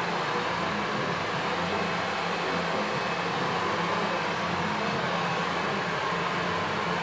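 Handheld hair dryer running steadily, blowing air onto the hair.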